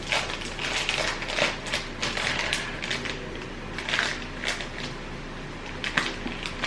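A packet of chocolate-covered almonds crinkling as it is opened and handled, with irregular crackles and clicks.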